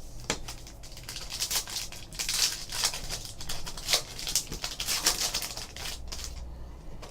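A pack of trading cards being torn open by hand: wrapper crinkling and tearing in quick crackly runs for about six seconds, dying away near the end.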